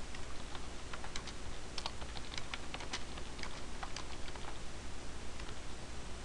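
Computer keyboard being typed on: a quick, irregular run of key clicks as a short sentence is entered, thinning out in the last couple of seconds.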